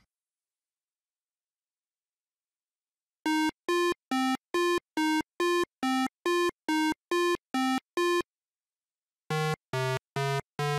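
8-bit, video-game-style chiptune beeps. After about three seconds of silence comes a steady run of short notes, about two and a half a second, that shift in pitch. After a brief pause, a lower-pitched run of the same kind of notes starts near the end.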